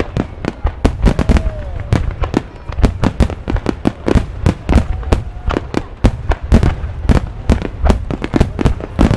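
Fireworks show: a rapid, continuous barrage of loud bangs and cracks, several a second, with no pause.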